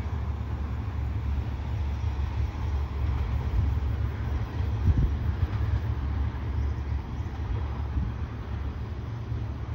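Express passenger train hauled by a Hitachi diesel-electric locomotive, rolling away along the track with a steady low rumble.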